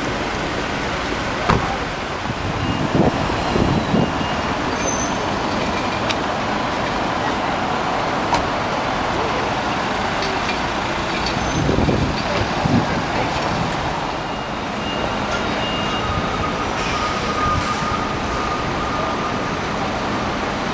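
Steady road traffic noise of a city street, with a few sharp knocks.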